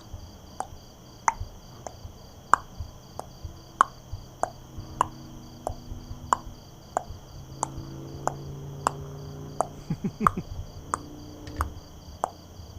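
Night insects, crickets, trilling steadily with a high pulsing chirp, over a sharp click that repeats evenly about every half second or so throughout.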